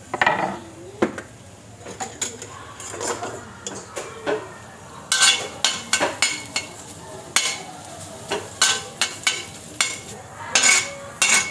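A metal utensil clinking, knocking and scraping against a pan or dish in irregular strokes while cooking, busier in the second half.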